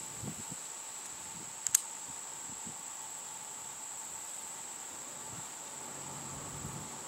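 Steady high-pitched insect drone, with one short sharp click about two seconds in.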